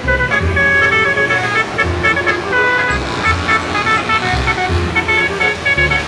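A fast tune of short, high, horn-like notes at changing pitches, over low thumps that come every half second to a second.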